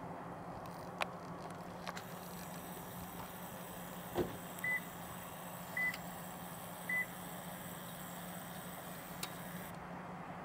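A vehicle engine idling with a steady low hum. Three short high-pitched electronic beeps sound about a second apart midway through, with a few sharp clicks around them.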